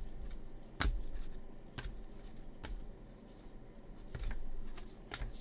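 Baseball trading cards being flipped through by hand, one card at a time, with a short slide-and-snap about once a second.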